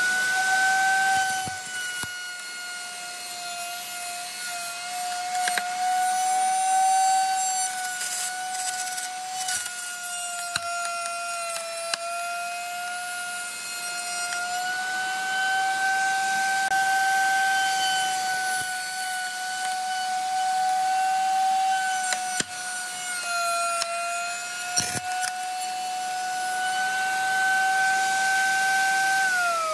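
Table-mounted router running with a steady high whine while its bit cuts along a wooden board. The pitch sags a little at times under the load of the cut, and near the end the motor is switched off and its whine falls away.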